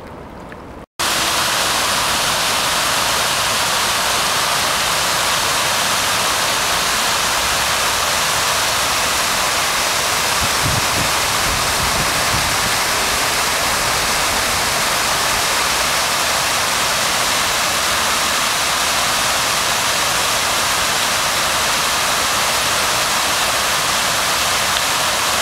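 Large ornamental fountain's many water jets splashing into its basin: a loud, steady rush of falling water that starts abruptly about a second in.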